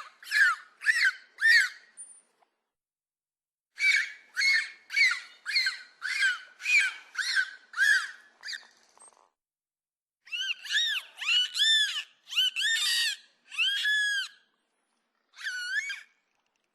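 Dolphin whistles: short calls with several overtones, each rising and falling in pitch, repeated about twice a second in several runs with brief pauses between them.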